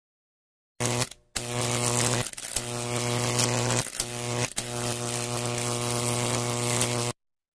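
Wahl electric hair clipper running with a steady buzz, cutting out briefly several times before stopping.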